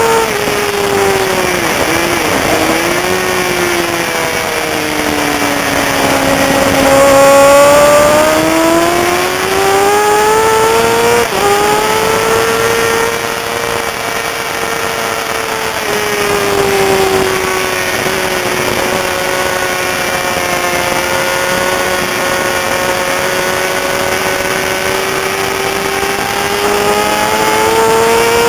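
Racing sportbike engine under way, its pitch sinking and climbing as the rider brakes and accelerates, with a quick break in the note about eleven seconds in as a gear is changed, then a long steady stretch at high revs.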